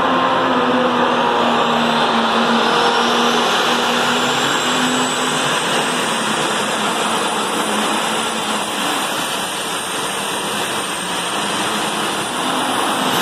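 Modified pulling tractor's engine running loud, with a thin high whine that climbs over the first few seconds, holds steady, then cuts off just before the end.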